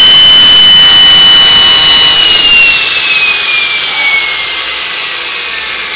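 Small gas turbine engine whining at a high pitch while it turns. About two seconds in, the whine starts to fall in pitch and grow quieter as the turbine winds down.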